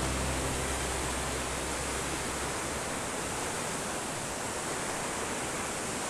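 Waterfall and cascading stream water rushing, a steady even roar with no breaks.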